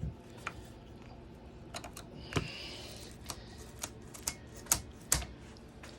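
Scattered sharp clicks and taps, at irregular spacing, from a Stihl MS170 chainsaw's chain and bar being handled while the chain tension is checked and adjusted, with a short faint scraping hiss a little past two seconds in.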